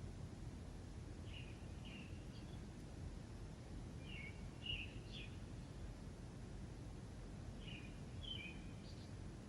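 A songbird repeating a short phrase of two or three chirps about every three seconds, over a steady low background rumble.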